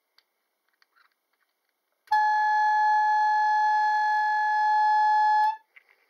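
Nempnett Thrubwell kitchen timer's electric air pump blowing its trumpet horn: one steady horn note lasting about three and a half seconds, starting about two seconds in and cutting off with a slight upward flick in pitch. The horn is set off by the timer circuit once the clock movement's chime contacts trigger it. A few faint clicks come before it.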